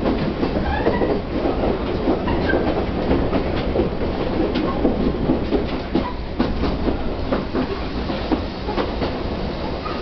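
Chichibu Railway 1000 series electric train (a former JNR 101 series) heard from inside the car while running, with a continuous rumble and a steady run of short clicks and rattles from the wheels and car body.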